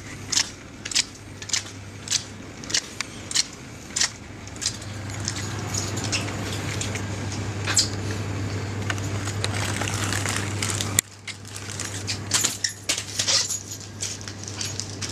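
Footsteps on a hard shop floor, a little under two a second, over a steady low hum. Midway the steps give way to a louder, even rustling for several seconds, which cuts off suddenly; after it come irregular small knocks and steps.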